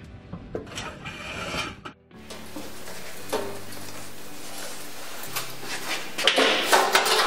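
Sheet metal rattling and clanking as a bend is made on a box-and-pan brake, with sharper metallic clanks near the end, over background music.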